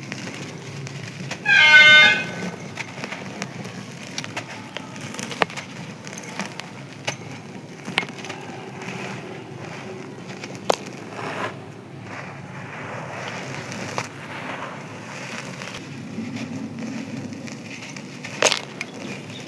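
Dry sand-cement chunks crumbling, with scattered sharp cracks and crunches over a low steady background. About two seconds in, a loud, brief pitched sound stands out above the crumbling.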